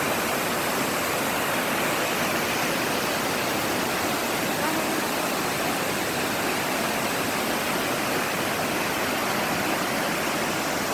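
The Great Falls of the Passaic River: a large waterfall giving a steady, even rush of falling water.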